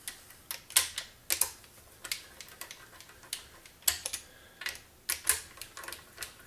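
Hand ratchet on a socket extension running down the 7/16-headed 1/4-inch valve-body bolts of a Turbo 400 transmission: short clusters of sharp metallic clicks, irregularly spaced.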